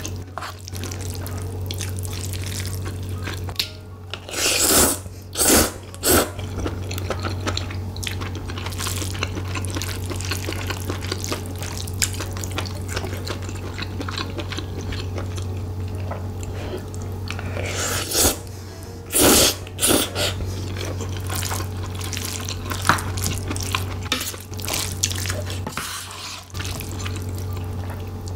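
Close-up eating sounds of rice mixed with spicy octopus, tripe, shrimp and glass noodles: steady wet chewing and mouth noises, with loud short slurps three times about five seconds in and again around eighteen to twenty seconds. A steady low hum runs underneath.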